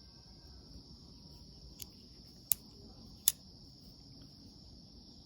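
Crickets chirping in a steady high trill, with a faint click and then two sharp metallic clicks from a multitool being worked by hand, about two and a half and three and a quarter seconds in.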